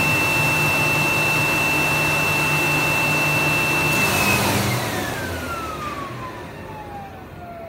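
DPF cleaning machine's air blower running with loud rushing air and a steady high whine. About four seconds in it winds down: the whine falls steadily in pitch and the air noise fades.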